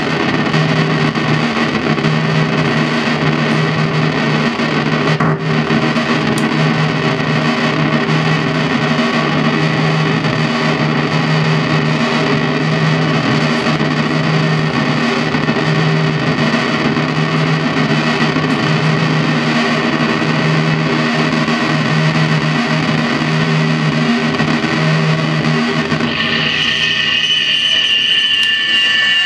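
Live electronic noise music from a Moog synthesizer run through effects pedals: a loud, dense distorted drone over a low hum that cuts in and out. About three seconds before the end the low part drops away, leaving high whining tones.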